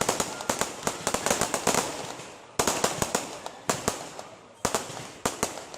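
Aerial fireworks display: shells bursting in a rapid, uneven series of sharp bangs, each fading off, with a loud burst about two and a half seconds in and further clusters of reports towards the end.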